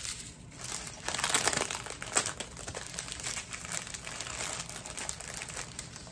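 Plastic packaging crinkling and rustling as it is handled, likely the small bags of diamond painting drills, with a louder stretch of crinkling about a second in and a sharp tick a little after two seconds.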